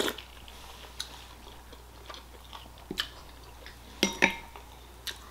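Quiet eating sounds from a person eating congee: a few soft mouth and chewing clicks, then about four seconds in a ceramic soup spoon clinks against the bowl with a brief ring.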